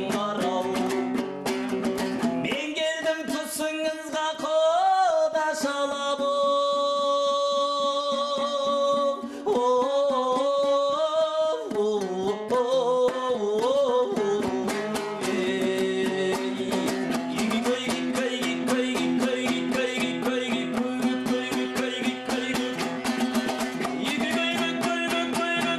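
A Kazakh folk song sung to a fast-strummed dombra. The voice comes in about two and a half seconds in, holds one long note midway, and drops out around fifteen seconds, leaving the dombra strumming on its own.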